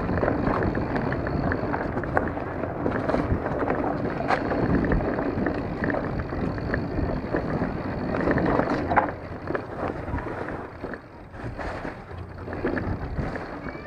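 Astrix Stryke full-suspension mountain bike rolling down a dirt trail: knobby tyres on loose dirt and roots, with a steady rushing noise and small clicks and clatters from the bike. The noise drops in level about nine seconds in.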